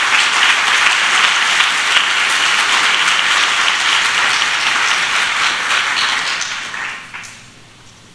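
Audience applauding steadily, the clapping dying away about seven seconds in.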